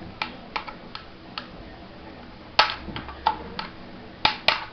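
Light clicks and knocks of 3D-printed plastic parts being handled and set down, the loudest about two and a half and four and a quarter seconds in.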